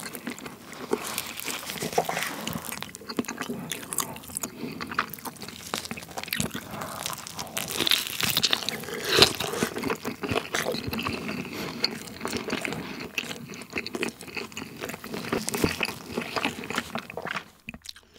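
Close-miked biting and chewing of thick cheese-pizza crust: a dense run of crisp crunches, busiest about halfway through, that dies away near the end.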